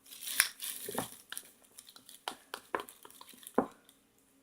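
A spoon stirring a thick flour-and-water play-doh mixture in a container, giving irregular clicks and short scrapes against the container's sides.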